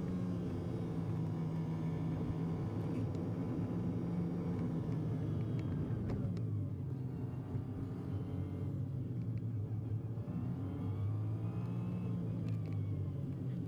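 Car engine running with road noise, heard from inside the cabin while driving slowly. The engine note drops about halfway through as the car slows, then rises and falls again near the end.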